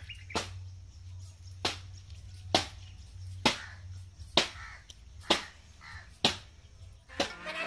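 Eight sharp clicks at an even pace, a little under one a second, over a low steady hum.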